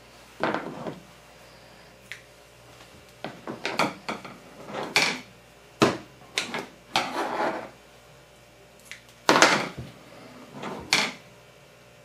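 A string of short, irregular rustling and scraping bursts from hands pulling and knotting butcher's twine around a stuffed chicken breast, the loudest about three quarters of the way through.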